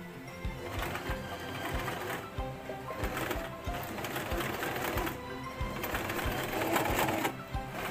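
Sewing machine stitching, with background music.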